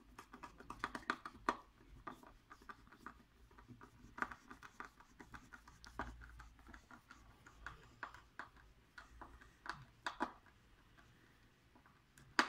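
Small clicks and scratching of hand work: a hand screwdriver turning screws into the reel mount on a carbon-fibre speargun barrel, with a sharper click near the end.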